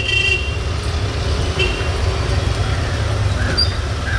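Steady low rumble of street traffic, with a vehicle horn tooting briefly at the very start.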